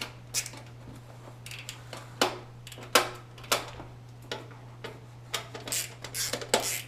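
Irregular sharp clicks and crackles of a computer keyboard's packaging being opened and handled, over a steady low hum.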